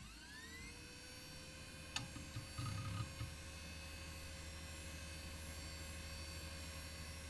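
Synthesized intro sound effect: a rising power-up whine that settles into a steady electronic drone, with a sharp click about two seconds in and a few low pulses just after.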